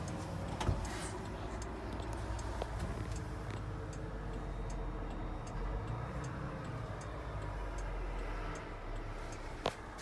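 Steady low hum of a JCB 3CX backhoe loader heard from inside its cab, with a faint regular ticking of about two ticks a second and a single knock near the end.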